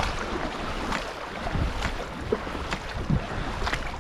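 Canoe paddles stroking through moving river water, a splash roughly once a second over a steady rush of water and wind rumble on the microphone.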